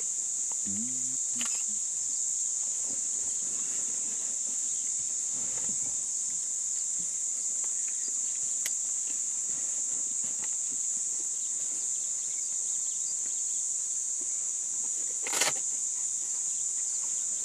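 Steady, high-pitched chorus of insects droning without a break. A short low call slides in pitch about a second in, and one brief, sharp noise stands out about fifteen seconds in.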